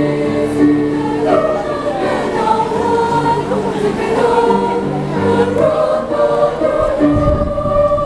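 Girls' school choir singing in parts, holding long notes in harmony that shift every second or so. A brief low rumble comes in about seven seconds in.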